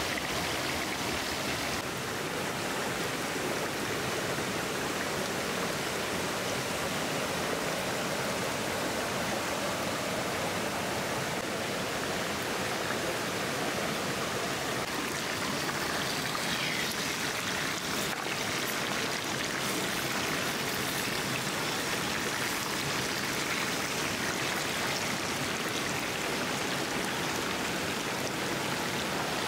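Hot oil sizzling steadily around a whole chicken frying in a pan, with a few light pops partway through.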